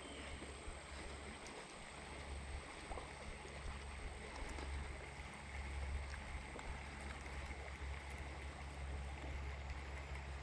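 Steady rush of a swollen creek's current, with a low rumble underneath.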